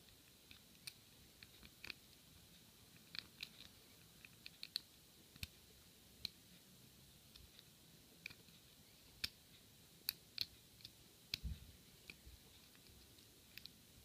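Faint, irregular clicks and ticks of a lock pick working the pins of a Sesamee padlock under tension, with a soft low knock about two-thirds of the way through.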